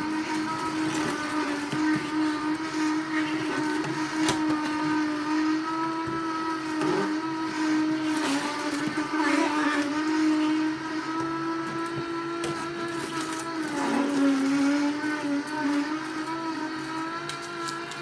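Electric juicer motor running steadily while juicing beetroot, apple and ginger, with a few short knocks and rattles on top; its pitch wavers and dips briefly late on.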